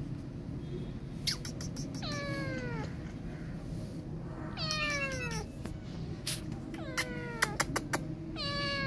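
A young calico kitten meowing about four times, each meow sliding down in pitch, with a few sharp clicks between the calls.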